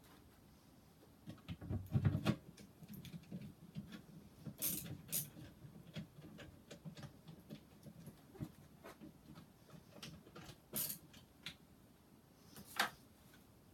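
Wooden furniture panels and dowels being handled and fitted together during assembly: scattered light knocks and taps, a heavier thump about two seconds in, and a few short scrapes.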